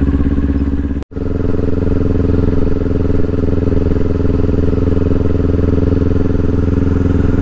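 Kawasaki Ninja 400's parallel-twin engine running at a steady, unchanging pitch while cruising, with no revving. The sound briefly cuts out about a second in and resumes just as before.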